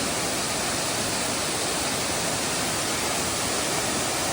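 Waterfall: falling water rushing in a steady, even hiss with no change in level.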